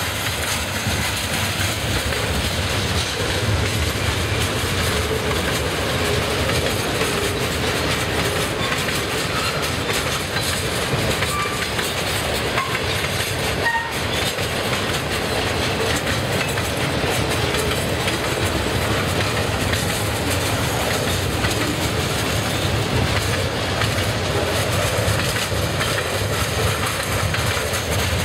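Freight cars of a passing train, covered steel coil cars and boxcars, rolling by at steady speed: a continuous rumble and clatter of steel wheels on the rails.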